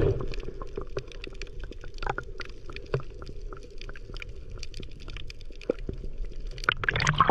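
Underwater sound picked up by a camera held below the surface: a steady muffled rumble of water dotted with many short sharp clicks and crackles.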